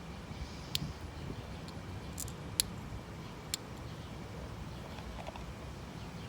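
Four short, sharp clicks spread over the first three and a half seconds, over a low steady rumble.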